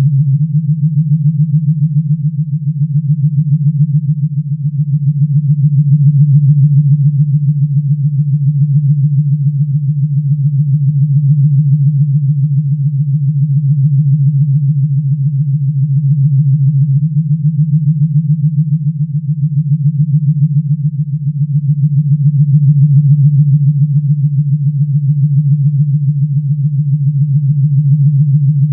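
Star Trek synthesized sound effect: a low, steady electronic hum with a fast flutter, slowly swelling and easing in loudness every few seconds.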